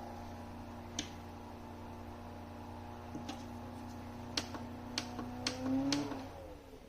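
Small rechargeable fan's motor running with a steady hum, broken by six sharp clicks. Near the end the pitch rises briefly, then the motor winds down and stops.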